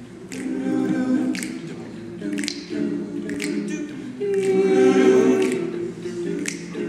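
All-male a cappella group singing an opening chord passage in several parts, with a sharp snap keeping time about once a second. The voices swell to their loudest a little past the middle.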